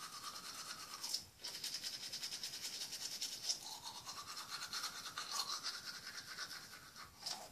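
Toothbrush scrubbing teeth: a steady brushing sound whose pitch dips and rises as the brush moves around the mouth, with a short break about a second in and growing fainter near the end.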